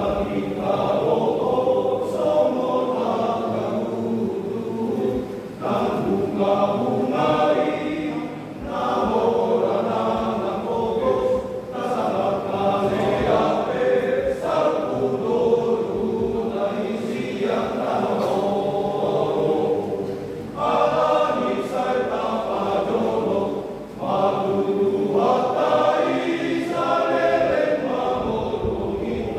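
A men's church choir singing together in parts under a conductor. The singing comes in long phrases with brief breaks between them.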